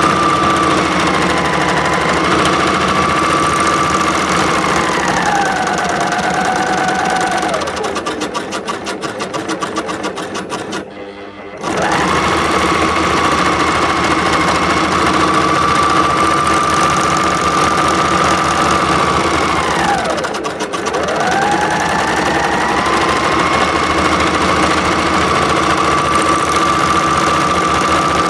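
Overlocker (serger) stitching fabric, its motor a steady high whine. It slows around 5 to 8 seconds in and runs slowly with rapid clicking stitches, then returns to full speed at about 12 seconds. It briefly stops and winds back up about 20 seconds in.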